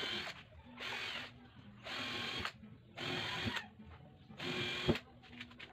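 Cordless drill whining into a plywood side panel in five short bursts, each under a second, with brief pauses between them.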